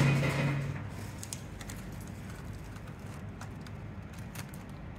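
Scissors cutting through a plastic rhinestone transfer sheet, with scattered small clicks and crinkles of the sheet being handled.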